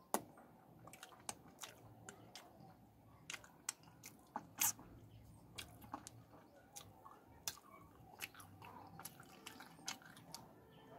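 Close-miked mouth sounds of a man sucking curry sauce off his fingers and chewing: irregular wet smacks and clicks, the loudest just after the start and about four and a half seconds in.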